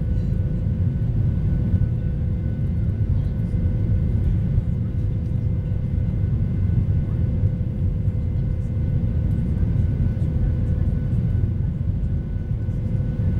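Steady low rumble of jet engines and airflow, heard inside the cabin of a Boeing 737 airliner climbing out after takeoff, with a few faint steady hums above it.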